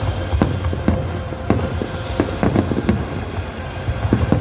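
Fireworks going off in quick, irregular succession: a dozen or so sharp bangs, two or three a second, over a continuous low rumble.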